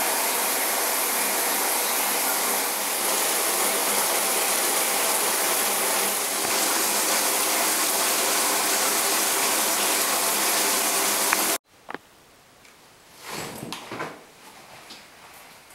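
Shower running: a steady, loud hiss of water spraying from a showerhead, which cuts off suddenly about three quarters of the way through. A few faint rustles and knocks follow.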